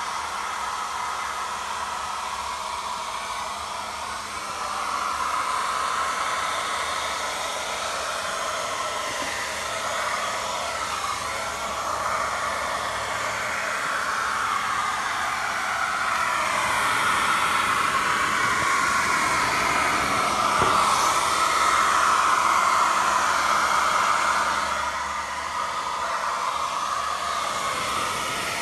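Handheld hair dryer running on its highest hot setting, blowing hot air over plastic window insulation film to heat-shrink it tight. Its steady rush grows louder about four seconds in and drops back near the end.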